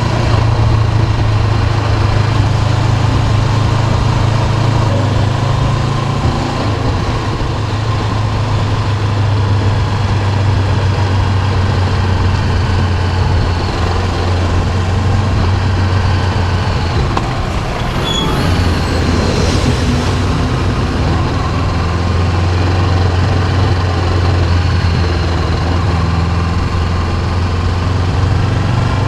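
Honda CB500X's parallel-twin engine running steadily under way, a low drone over wind and road noise, its pitch shifting slightly a couple of times. A few brief high-pitched sounds come about two-thirds through.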